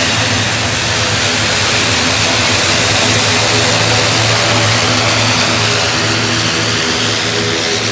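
Aircraft engine running steadily at close range: a constant deep hum with a loud rushing hiss over it.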